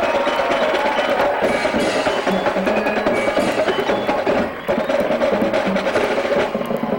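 Marching band playing: sustained horns with busy percussion, many sharp hits throughout.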